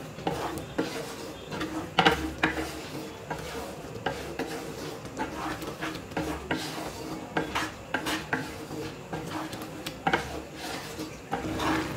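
Wooden spatula stirring a thick chickpea-and-ridge-gourd dal in a pan, with irregular scrapes and knocks of wood against the pan.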